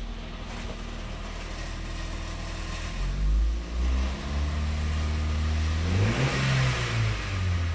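2011 Ford Fiesta's 1.6-litre four-cylinder engine revved in park: it runs steadily at first, climbs in rpm about three seconds in, holds, rises to a peak near three thousand rpm, then falls back toward idle near the end.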